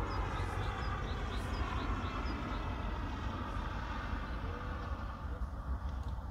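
Distant Airbus A380 with four Engine Alliance GP7200 turbofans, moving on the runway: a steady deep jet rumble, with faint short chirps in the first couple of seconds.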